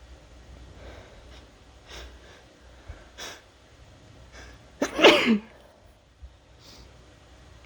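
A person's wet, induced sneeze about five seconds in, its voice dropping in pitch at the end, preceded by a few short breaths as it builds.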